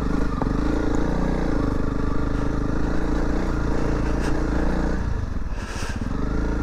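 Honda CRF300 Rally's single-cylinder four-stroke engine running under load as the bike is ridden off-road. The revs ease off briefly about five seconds in, then pick up again.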